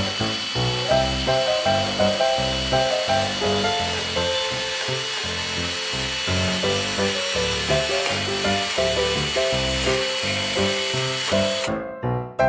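Miniature chainsaw running with a steady high whine as its chain cuts through a small wooden log, stopping shortly before the end. Music with a steady beat plays over it.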